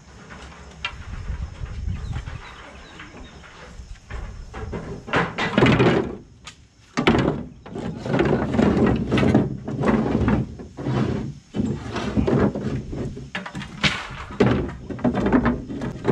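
Armloads of wooden tobacco sticks being dropped and slid into a pickup truck bed, knocking and clattering against each other and the bed. The clatter grows busier and louder from about five seconds in, with repeated clusters of knocks.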